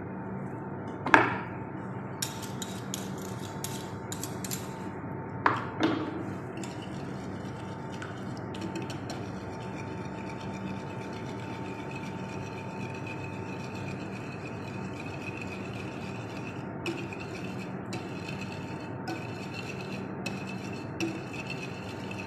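A metal utensil knocking sharply against a ceramic plate twice in the first six seconds, then a few light clinks and scraping as a creamy mixture is stirred on the plate, over a steady background hiss.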